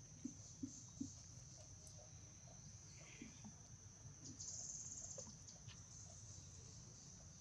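Steady high-pitched trilling of insects, with one louder, pulsing insect trill about four to five seconds in. In the first second, a few soft rhythmic clicks from a macaque sucking milk from a small carton.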